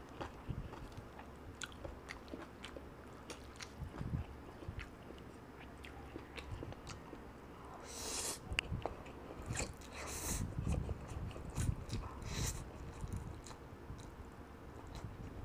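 Close-up eating sounds of jajangmyeon black bean noodles: steady chewing with small wet mouth clicks, and three louder slurps of noodles, about eight, ten and twelve seconds in.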